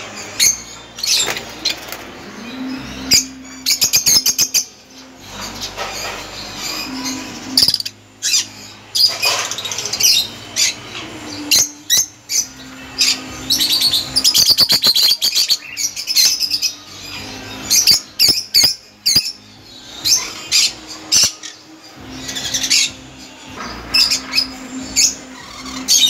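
Caged peach-faced lovebirds chattering: many shrill, overlapping chirps broken by quick rattling trills.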